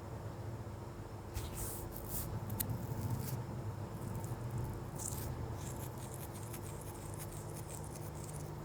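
Scattered light clicks and rattles in two short clusters over a steady low hum, with no beeping.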